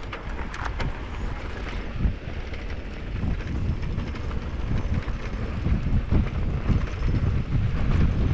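Riding noise from a mountain bike going fast down a dirt trail: knobby tyres rolling over dirt, with short rattles and clicks from the bike, and wind buffeting the microphone. The wind rumble grows louder toward the end as speed builds.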